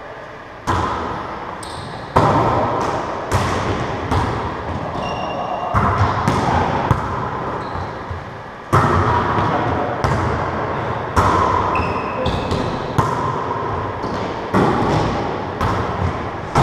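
Wallyball rally in an enclosed racquetball court: the rubber ball is slapped by hands and bounces off the walls, about a dozen sharp smacks at irregular intervals, each with a ringing echo. A few short sneaker squeaks on the hardwood floor come between them.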